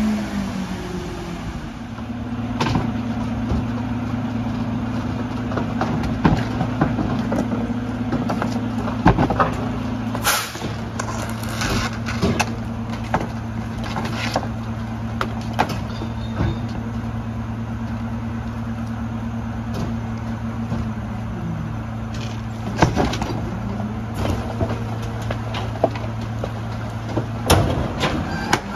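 Mack MRU garbage truck running its Heil 5000 rear loader's packer: a steady low engine hum that sets in about two seconds in and stops near the end, with repeated bangs and cracks as bulk items are crushed in the hopper, loudest around the middle.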